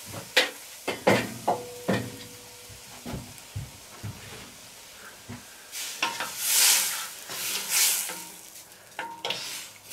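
Stew in a stainless steel cauldron over charcoal, with scattered clicks and knocks; from about six seconds in a spoon stirs it in a few scraping, hissing strokes against the steel.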